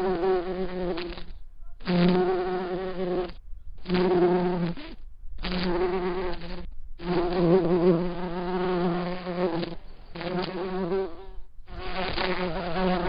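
A flying insect buzzing, about seven bursts of one to three seconds each with short gaps between, its pitch wavering.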